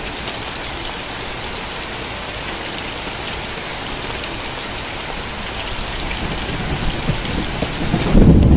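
Heavy monsoon rain falling steadily, a dense, even hiss of drops. Near the end a much louder low rumble comes in over it.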